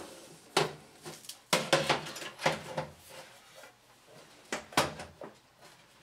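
Several sharp knocks and clunks of a computer power supply unit being handled and set into position in a steel PC case, with a close pair of knocks near the end.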